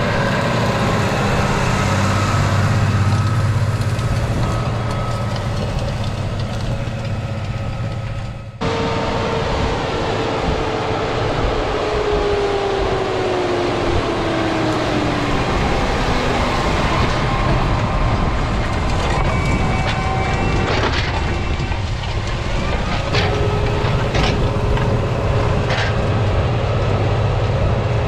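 Deutz-Fahr 6175 TTV tractor's engine running steadily under load while pulling a chisel plow through soil. After an abrupt cut about a third of the way in, a whine slides slowly down in pitch. A few sharp cracks come near the end.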